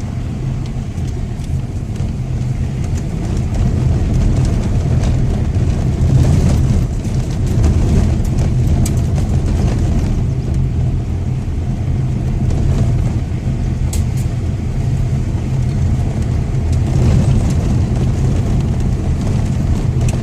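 A car driving, heard from the inside: a steady low rumble of engine and tyres with scattered small knocks and rattles.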